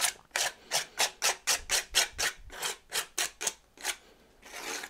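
Palette knife scraping acrylic paint across a stencil in quick short strokes, about four a second. The strokes stop just before the end, then one longer, softer scrape follows.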